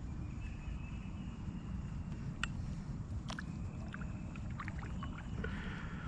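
Kayak moving on a lake: a steady low rumble of water and wind against the hull and microphone, with a few sharp knocks in the middle and faint high-pitched calls in the background.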